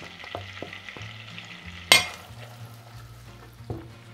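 Diced onion sizzling in melted butter and olive oil in a pot, with a silicone spoon clicking and scraping the last pieces off a plate. A single sharp knock comes about two seconds in, and the sizzle thins out after it.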